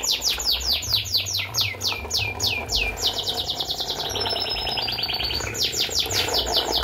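A songbird singing a fast run of high, falling chirps, about six a second, which breaks into a quicker trill for a couple of seconds in the middle before the falling chirps return.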